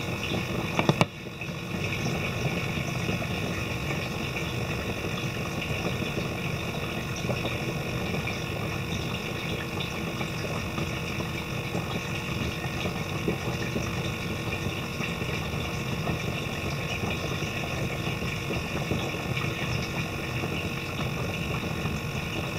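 Steady hum of a small water pump with water running, the kind that keeps water flowing over an anesthetized fish's gills during surgery. A short knock about a second in.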